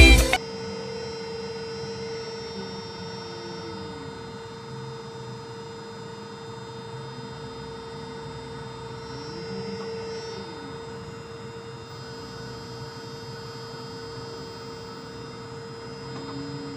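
Steady machinery hum held at one pitch with fainter overtones. Now and then a faint whine glides up and falls back down.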